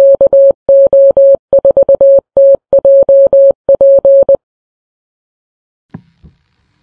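Morse code: a steady beep near 600 Hz keyed in dots and dashes, spelling the amateur radio call sign KO4TJP. It stops a little after four seconds, and a faint short knock follows near the end.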